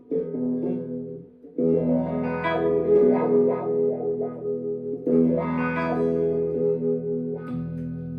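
Electric guitar with humbucker splits, played through a Dunlop Cry Baby wah pedal into a distorted Mesa Nomad 100 amp and 2x12 cabinet. Chords are struck about four times and left to ring, with a short gap about a second in.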